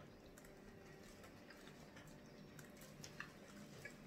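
Near silence with faint, scattered clicks and smacks of eating: shellfish shells being peeled and food being chewed.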